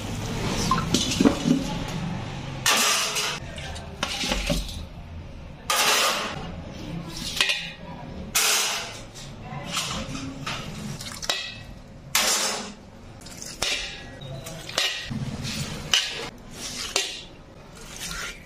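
Marinated chicken legs handled in a large steel bowl: short, irregular clinks and scrapes of meat against the metal, roughly one a second.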